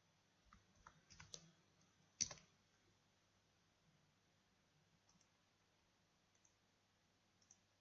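Faint clicks of a computer mouse and keyboard keys: a quick run of clicks in the first second and a half, one louder click a little after two seconds, then a few very faint ticks.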